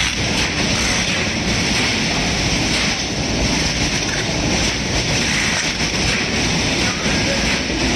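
Steady, loud factory machinery noise from a packing line with a belt conveyor: a continuous even din with no breaks or distinct strokes.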